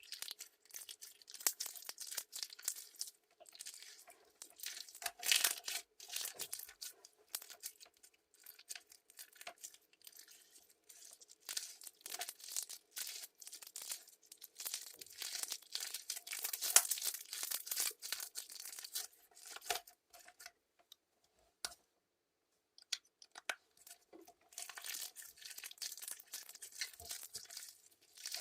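Clear crystal slime being squished and stretched by hand, giving a dense run of sticky crackles and small pops. The crackling stops for a couple of seconds about three-quarters of the way through, then starts again.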